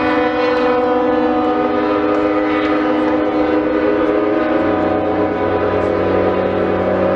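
Several ships' horns sounding together in long, overlapping blasts at different pitches; a deep horn joins about four and a half seconds in.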